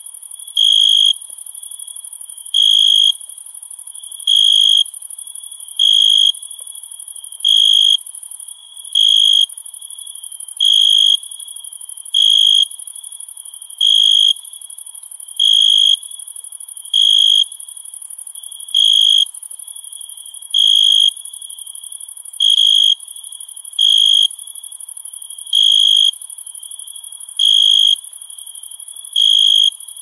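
Night crickets: a steady high-pitched trill from a chorus, with one louder, lower chirp repeating about every second and a half to two seconds.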